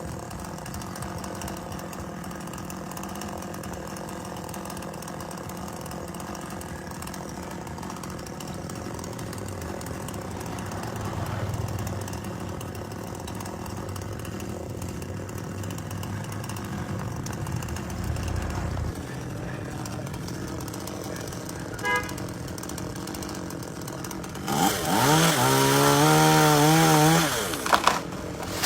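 Two-stroke chainsaw running steadily at low speed, then revved up hard near the end for about three seconds, its pitch rising and wavering before it drops back.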